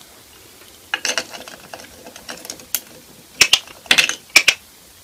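Small metal coins clicking and clinking against a wooden table and a small wooden chest as a parrotlet handles them with its beak: irregular sharp clicks, a few about a second in and a quicker cluster near the end.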